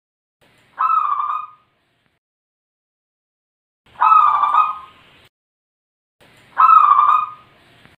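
Zebra dove (perkutut) cooing: three separate cooing phrases, each about a second long and a couple of seconds apart.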